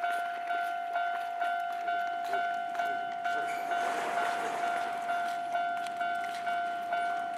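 Japanese railway level-crossing warning bell ringing in an even two-tone clang, about two strikes a second. A rush of noise swells and fades in the middle.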